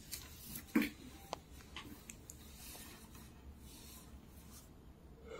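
Light handling noises from a motorcycle's metal stator plate being worked over with a cloth while its old oil seal is taken out: cloth rustling and a few small clicks and knocks, the sharpest knock about a second in.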